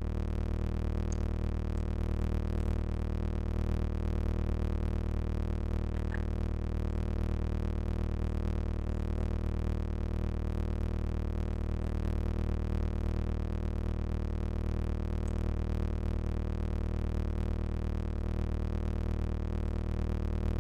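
A steady low hum with a dense stack of higher overtones, unchanging in pitch and loudness, with a few faint ticks over it. It is the weird noise of unknown origin heard in the rabbit hutch.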